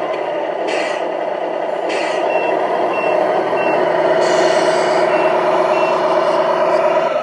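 RC King Hauler tractor truck's electronic sound unit playing a simulated truck engine running steadily. Over it come high reversing beeps about every half second while the truck backs up, in two short runs, with a few brief hisses.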